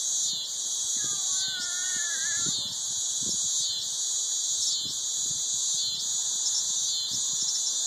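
Dense, high-pitched chorus of insects singing steadily, pulsing about every three-quarters of a second.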